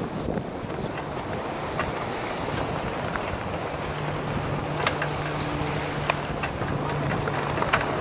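Wind buffeting the microphone over rushing water on the open water, with a few sharp ticks. A low steady motor hum comes in about halfway through.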